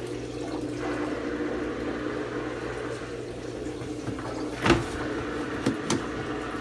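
Kuppet twin-tub mini washer's built-in drain pump running with a steady hum as wash water pours from its drain hose into a toilet bowl. A sharp knock nearly five seconds in, then two lighter clicks about a second later.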